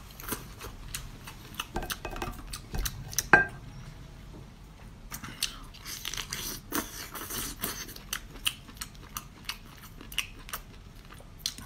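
Close-up eating sounds of boiled crayfish: shells cracking and snapping between fingers and teeth, with wet sucking and chewing. It is a scattered run of sharp clicks and crackles, the loudest snap about three and a half seconds in.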